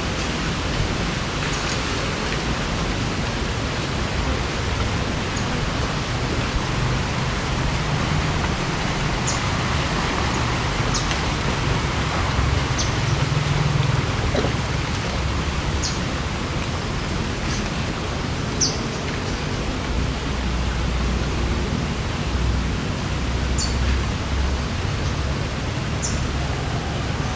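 Steady outdoor background hiss, like wind or distant traffic, with a low hum under it and a short high chirp every few seconds.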